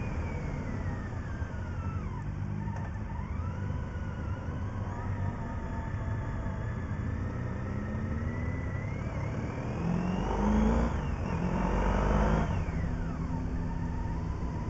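Motorcycle engine heard from a camera on the moving bike, over a steady low wind rumble, its pitch rising and falling with the throttle and gear changes. About ten seconds in it gets louder and revs up sharply twice, then drops back.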